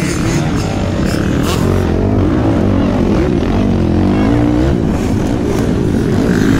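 Motocross bike engine running hard, its pitch rising and falling again and again as the rider works the throttle and gears around the track.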